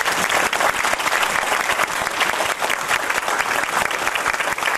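An audience applauding: a steady round of many hands clapping.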